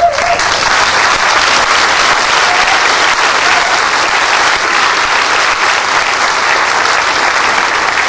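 Audience applauding, a steady clapping from a crowd.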